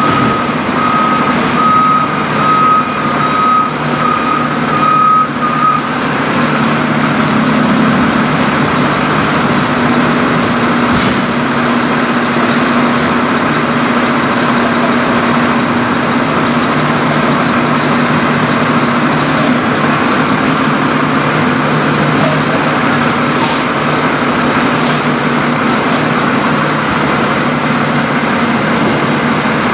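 Garbage truck's reversing alarm beeping steadily for the first six seconds or so, over its diesel engine running; the beeping then stops and the engine keeps running at a steady, raised speed.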